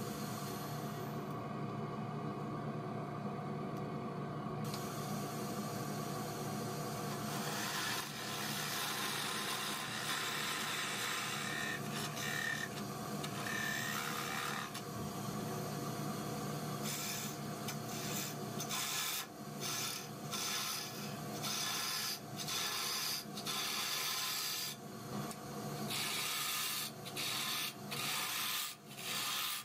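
Wood lathe running with a steady motor hum while a hand-held turning tool cuts the spinning wooden blank, a rough scraping hiss. The cutting stops for a few seconds near the start, then in the second half comes in short strokes with gaps as the tool goes on and off the wood, hollowing the inside of the lid.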